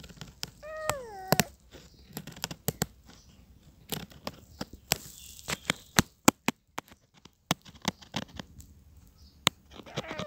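A young tabby kitten meowing twice, each meow falling in pitch: one about a second in and one near the end. Scattered sharp clicks and crackles run between them.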